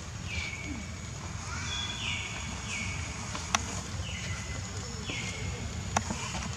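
Repeated short, high animal calls, each dropping a step in pitch and then holding briefly, about six in all over a low steady background noise. Two sharp clicks come near the middle and near the end.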